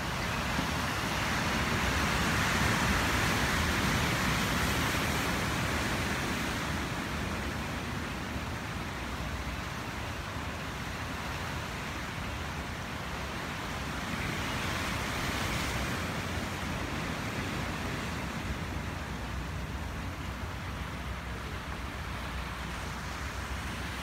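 Ocean surf breaking and washing over rocks below a cliff, a steady rush with a low rumble underneath. It swells louder twice, from about a second in for several seconds and again briefly past the middle, as waves come in.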